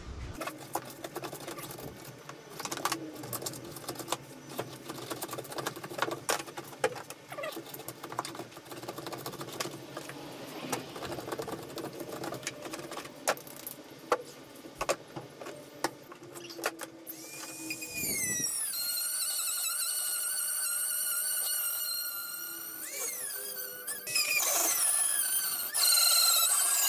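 Metal camp spoon scraping and chipping out foam from inside a freshly cut speaker hole in a boat hull, with rapid irregular scrapes and clicks. From about two-thirds of the way in, high squeaking with a wavering, gliding pitch takes over and grows louder near the end.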